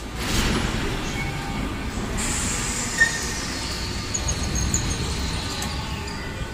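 Metro train running along the station platform: a steady low rumble of wheels and running gear, with a high whine from about two seconds in that falls in pitch as the train slows, and one sharp click about three seconds in.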